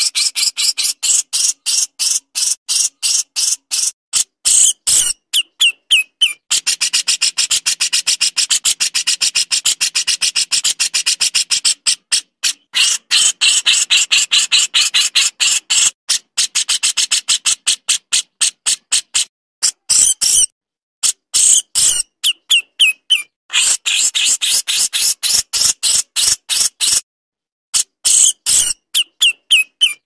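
Small songbird giving a long run of rapid, sharp, high-pitched notes, about eight a second, in the rapid-fire 'tembakan' style, breaking off briefly a few times.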